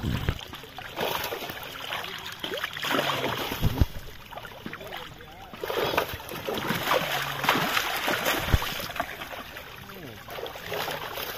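Water splashing in irregular bursts as large carp and catfish crowded in a net thrash in shallow water, with a couple of dull thumps.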